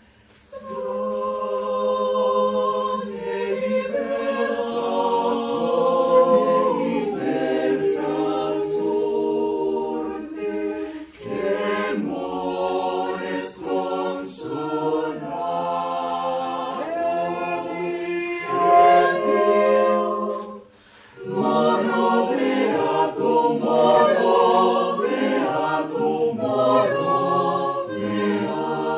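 Mixed-voice choir singing a cappella in harmony, with a short break about two-thirds of the way through before the voices come back in.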